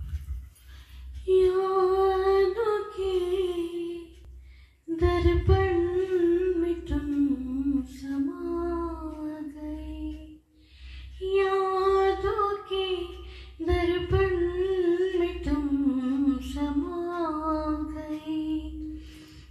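A woman singing a slow Hindi film song unaccompanied into a handheld microphone, in three long phrases with short breaths between them.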